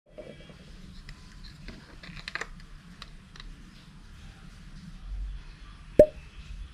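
Small clicks and handling noises of tools and parts over a low background rumble, with one sharp metallic clink about six seconds in.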